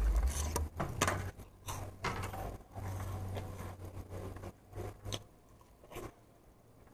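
Handling noise at a table: scattered light clicks and knocks as fingers reach into a plastic cottage cheese tub, with a brief low rumble at the start as an arm passes close to the microphone.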